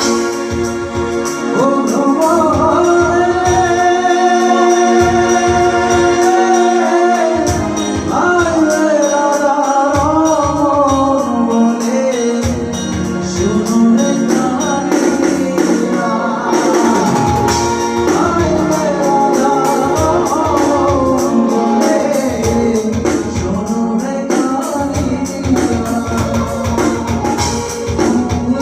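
A voice singing a Bengali folk song in long, sliding held notes, accompanied by an electronic keyboard with an organ-like sound.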